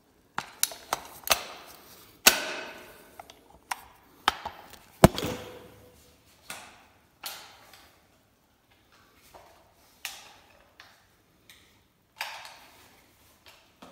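Irregular knocks and clacks of an airsoft rifle's receiver being handled, tugged and tapped as its halves are worked apart. The halves hang because the magazine is still seated. The loudest knock, about five seconds in, rings briefly, and the knocks thin out in the middle.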